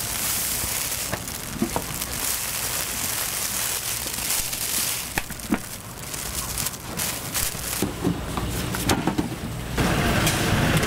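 Granular hotteok filling poured from a plastic bag into a stainless steel tray: a steady pouring hiss with small clicks and plastic crinkling. About ten seconds in, cooking oil is poured from a jug onto the griddle plate, and the sound turns louder and fuller.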